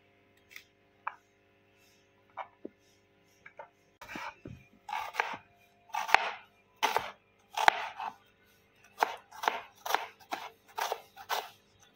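Knife slicing through a red onion against a cutting board. A few light clicks at first, then from about four seconds in a steady run of sharp cuts, roughly one or two a second.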